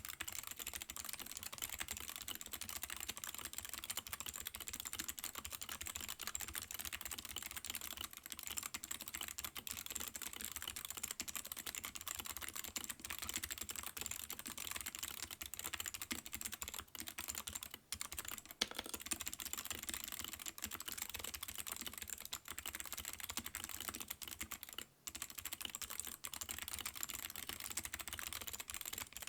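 Fast typing on a HANSUNG TFG ART mechanical keyboard with Outemu low-profile clicky switches and PBT pudding keycaps: a dense, continuous stream of key clicks, pausing briefly twice.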